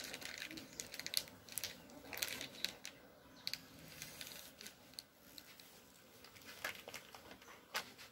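Faint scattered clicks and ticks, several quick ones in the first few seconds and a couple more near the end, over quiet background noise.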